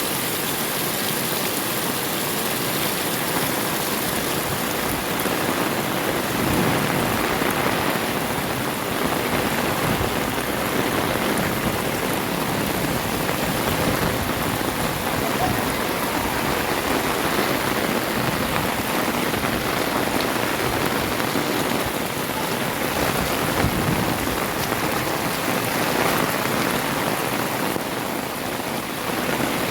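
Heavy rain falling and pattering steadily on surfaces around a walker.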